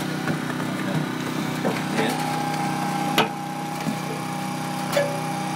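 An engine running steadily at idle, with a sharp click a little past three seconds in and another near the end.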